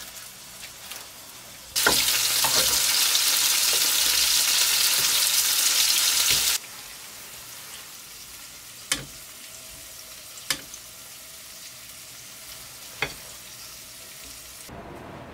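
Food sizzling loudly in a hot pan for about five seconds, starting and stopping abruptly, then three sharp clicks of metal tongs on a plate.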